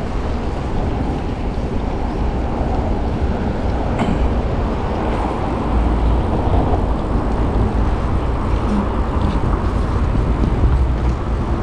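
Wind buffeting the microphone of a chest-mounted action camera on a moving bicycle: a steady, flickering low rumble mixed with rolling road noise.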